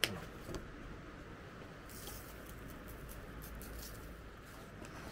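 A sharp click at the start, then about two seconds of quick light rattling as a seasoning shaker is shaken over a raw steak.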